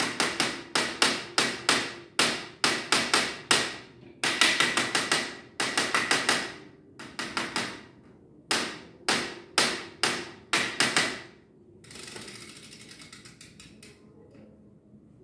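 Claw hammer tapping a dented bicycle rim in quick runs of light metal-on-metal blows, about four a second, knocking the bulged spots of the rim back in so they no longer rub the brake pad. The tapping stops about twelve seconds in.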